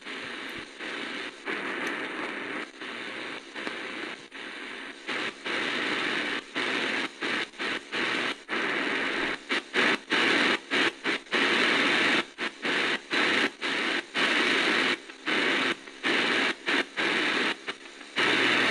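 Static hiss from the RRS RS-661BT portable radio's speaker on the shortwave band as the tuning dial is turned between stations. The hiss keeps cutting out for a moment, more and more often in the second half.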